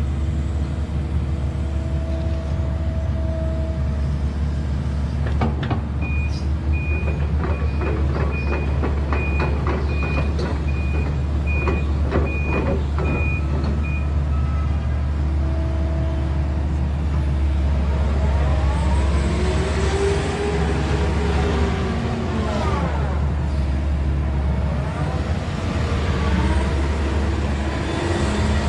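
Kobelco SK200-10 excavator's diesel engine running steadily. An alarm beeps about once a second for several seconds amid clanking, typical of the travel alarm sounding while the machine moves on its tracks. Later, rising and falling whines follow as the hydraulics work.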